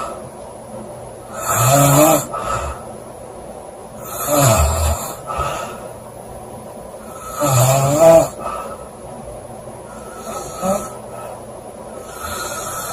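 A woman snoring loudly, one rasping snore about every three seconds, the last two weaker.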